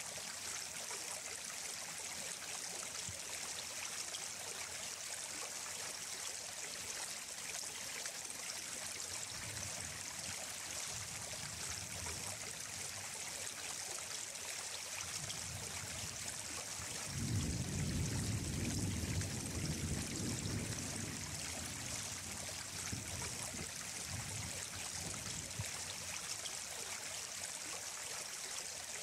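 Running water of a stream flowing and trickling steadily, a continuous hiss. A little past the middle, a low rumble rises for a few seconds and then fades.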